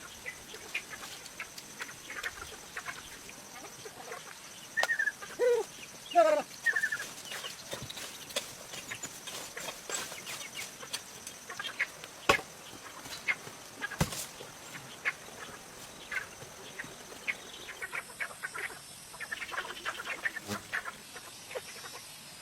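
Domestic fowl calling a few times, about five to seven seconds in, among scattered sharp clicks and knocks, over a steady high thin whine.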